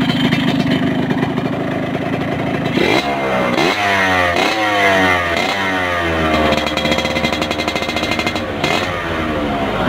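Yamaha RX King 135's two-stroke single-cylinder engine idling, then revved in a series of quick throttle blips from about three seconds in. A longer rev is held for a couple of seconds and drops back, followed by one more rise near the end.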